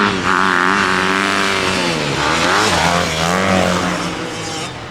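Kawasaki KX100 two-stroke dirt bike engine running hard under throttle. The pitch drops about two seconds in, climbs again, and falls off near the end as the throttle eases.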